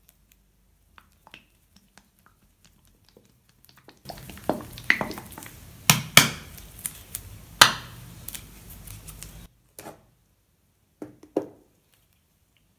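Plastic squeeze bottle of dessert topping sauce squeezed out over ice cream: spluttering, squirting hiss with several sharp squelches, lasting about five seconds. A couple of light knocks follow near the end.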